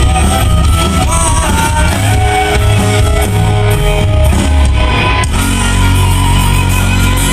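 Live pop-rock band playing loud through a PA, a sung melody over guitar, bass and drums. About five seconds in the band moves onto long held guitar and bass chords.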